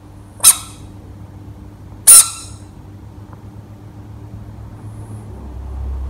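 Two short, loud, high-pitched squeaks about a second and a half apart, typical of a rubber squeaky toy ball squeezed by hand.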